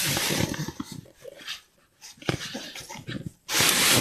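Jack Russell terrier making short, noisy breathing and snuffling sounds close to the microphone, broken by a brief pause midway. A louder rustling burst comes near the end.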